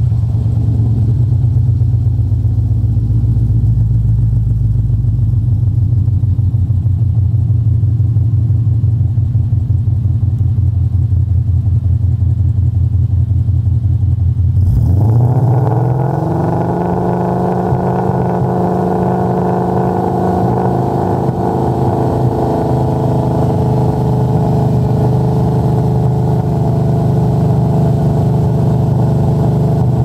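2013 Ford Mustang GT's 5.0-litre V8 running through BBK VariTune adjustable mufflers, heard from behind the car. It idles steadily, then about fifteen seconds in the revs climb quickly and are held steady at about 3000 rpm.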